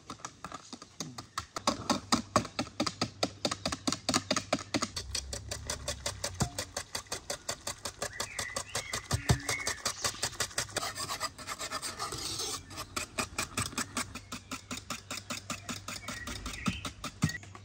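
Wire whisk beating a thin egg-and-milk mixture in an aluminium pot, in rapid even strokes of about five a second, the wires scraping and tapping against the metal. The whisking stops near the end.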